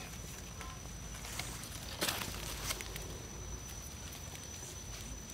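Rustling and crackling of leaf litter and soil as a gloved hand digs out a wild mushroom and a knife scrapes its stem, with a sharper rustle about two seconds in.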